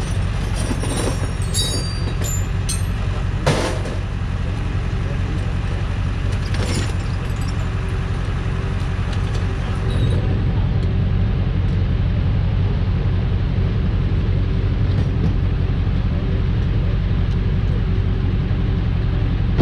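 Tow truck engine idling steadily, with a few sharp knocks and clatters in the first seven seconds, the loudest about three and a half seconds in.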